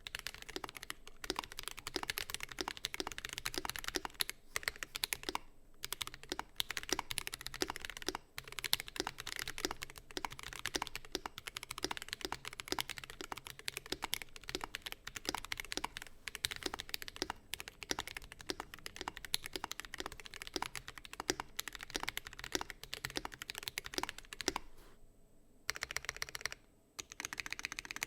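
Continuous fast typing on a custom mechanical keyboard with lubed Akko Ocean Blue tactile switches in an aluminum plate, fully foamed: a quick stream of keystroke clacks with a few brief pauses and a short lull near the end.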